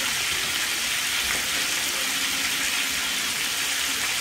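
Rabbit pieces deep-frying in a pot of hot grease: a steady, even sizzle of bubbling oil with the meat still cooking.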